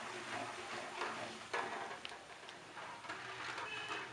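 Irregular clicks and light clatter over a steady background hiss, with faint voices.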